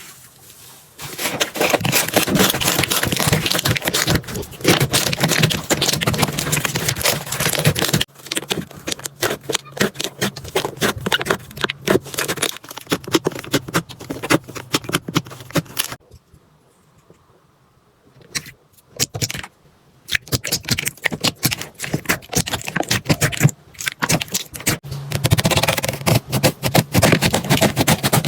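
Slime being pressed and squeezed by hand in a series of short clips: dense crackling, clicking and squishing, with a near-silent pause about sixteen seconds in.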